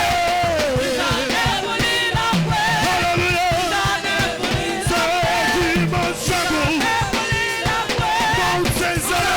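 Choir singing a worship song with a live band, with a steady beat of drums and instruments under the voices.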